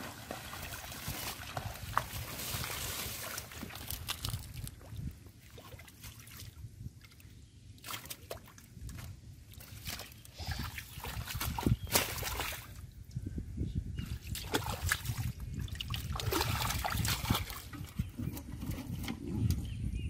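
Wet mud and shallow water squelching, trickling and sloshing as hands and bare feet dig through a muddy bed, with scattered irregular splashes.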